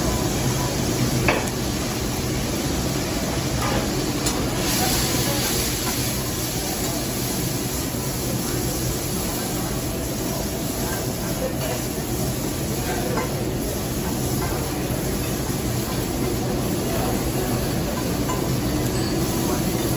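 Food sizzling on a hot steel teppanyaki griddle, a steady hiss that grows louder about five seconds in, with a few sharp clicks of a metal spatula against the griddle.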